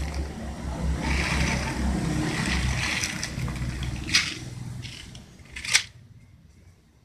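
A plastic seed packet crinkling as kangkung seeds are shaken out onto wet tissue, over a low rumble of handling. Two sharp clicks come near the end, about a second and a half apart.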